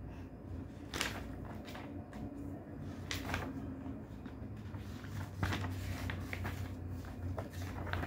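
Faint, scattered knocks and rustles of something being handled, a few seconds apart, over a low steady hum.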